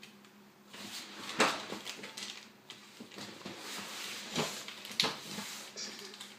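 Plastic blind-bag packet crinkling and rustling in a child's hands as she struggles to tear it open, with irregular crackles and a few sharp clicks.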